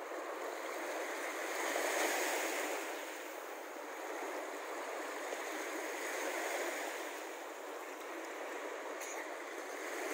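Small Baltic Sea waves washing onto a sandy shore: a steady rush that swells and fades, loudest about two seconds in and again past the middle.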